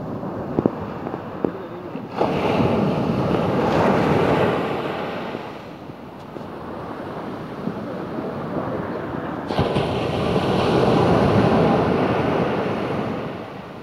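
Sea surf breaking and washing up a sandy beach: a wave crashes in about two seconds in and another near ten seconds, each rushing up and then fading away. A few sharp clicks sound in the first couple of seconds.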